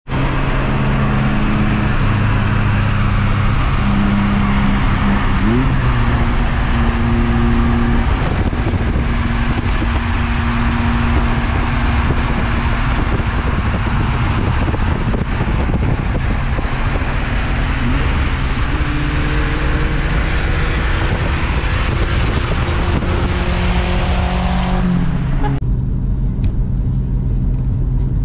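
Lowered Nissan Hardbody (D21) pickup being driven, its engine running and changing pitch as it speeds up and shifts, over steady road noise.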